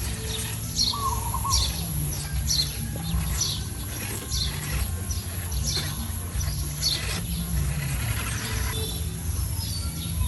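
A bird chirping over and over, short falling high notes repeated about once every second or less, over a steady low hum.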